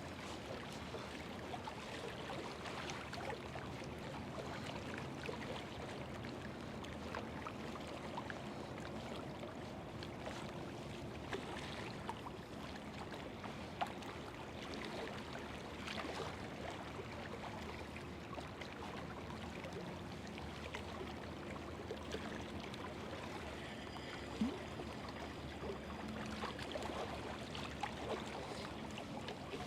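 River water running and washing against bank rocks, a steady wash throughout, under a faint steady low hum, with a few small clicks now and then.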